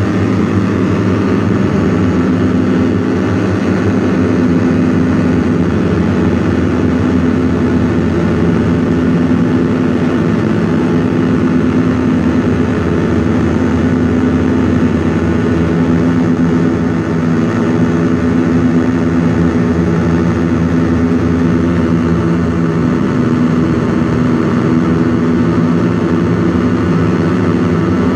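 Handmade METSÄÄN Dirty Drone Defrost square-wave drone synth playing its full spectrum, the summed oscillator pairs giving a loud, dense, buzzing drone. It throbs as slightly detuned oscillators beat against each other, and its pitches shift a little a few times.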